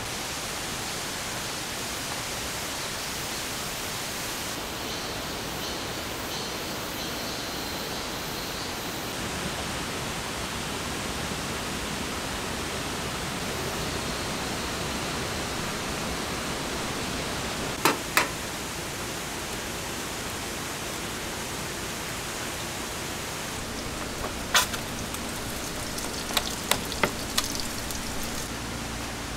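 Steady hiss of falling rain. A few sharp clicks cut through it, a pair a little past halfway and several more near the end.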